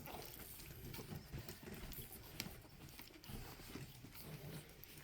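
Four-week-old pug puppies moving about: faint pattering and scuffling of small paws, with a few light clicks.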